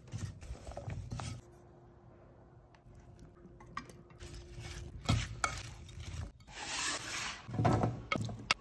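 A wooden spatula stirs and scrapes quartered fingerling potatoes and chopped herbs in a ceramic bowl, then goes quiet for a few seconds. Near the end come louder scraping and tumbling sounds as the potatoes are pushed out of the bowl onto a baking tray.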